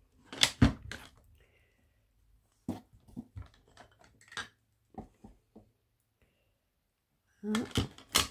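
Scattered light knocks and taps of a cardboard drawer unit being handled, the loudest about half a second in. Near the end a short clatter as a clear acrylic stamping block is set on top as a weight to hold the glued top down.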